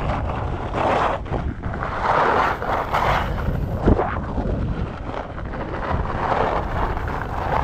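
Wind buffeting the microphone and skis scraping over hard-packed piste snow during a descent, the scraping swelling and fading in waves, with one sharp knock about four seconds in.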